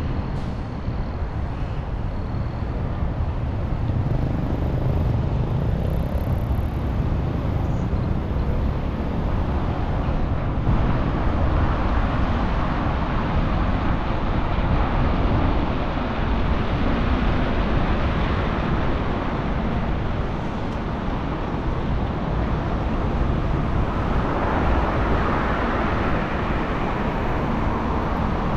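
Wind rumbling on the microphone of a moving bicycle, over steady city traffic noise, the traffic hiss swelling twice.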